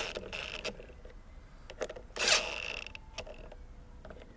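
Two 10 mm bolts on a lawnmower's air filter box being run in with a socket tool, in two short mechanical bursts about two seconds apart, with light clicks between.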